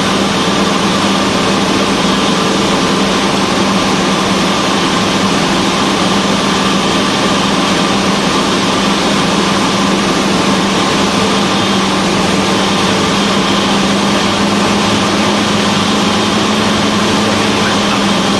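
Cessna 172's piston engine and propeller running steadily in cruise, an even drone with a strong low hum.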